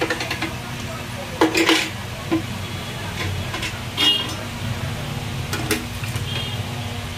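Plastic blender jar knocking and clicking against a plastic cup and the counter as thick papaya juice is poured out. Scattered sharp knocks, the strongest about a second and a half in, over a steady low hum.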